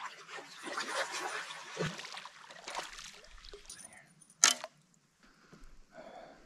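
Footsteps pushing through dry marsh grass and brush: dense rustling and crackling for the first three seconds or so, then one sharp click about four and a half seconds in.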